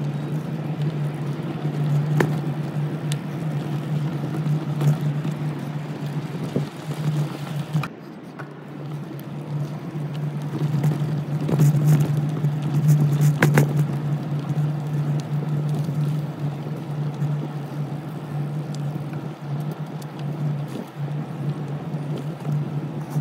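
A steady low motor hum at one unchanging pitch, with rattles and a few sharp knocks, dipping briefly about eight seconds in.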